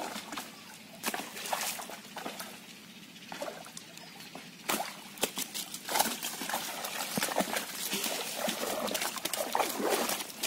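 Shallow pond water splashing and sloshing as a large fish thrashes in a cast net being hauled in. Scattered splashes at first, growing denser and louder from about six seconds in.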